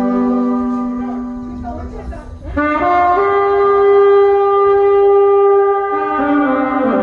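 Saxophones playing a slow melody in long held notes. One note fades out about two seconds in, a new phrase starts about half a second later, and the notes change again near the end.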